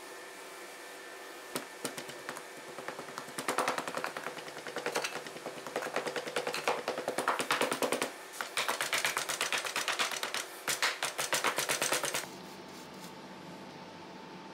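Wooden hand rammer tamping damp moulding sand into a wooden mould box: a quick run of dull knocks that stops suddenly near the end.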